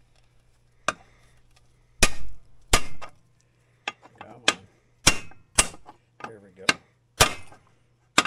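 Hammer striking a socket used as a bearing driver, tapping a 6205 2RS sealed ball bearing into a snowmobile chain case: about ten sharp metallic hits at an uneven pace, each with a short ring, driving the bearing until it seats fully.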